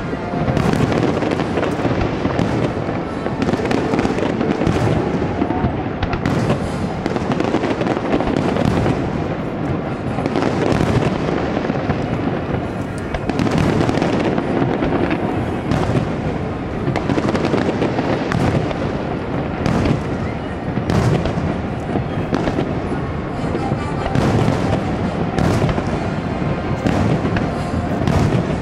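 Aerial fireworks shells bursting again and again at irregular intervals, sharp bangs and booms with crackling.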